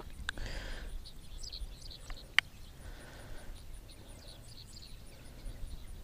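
Small birds chirping faintly, over a low rumble, with a single sharp click about two and a half seconds in.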